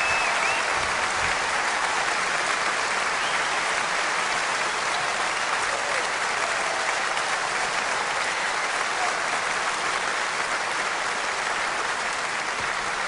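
Large audience applauding steadily, easing off slightly toward the end.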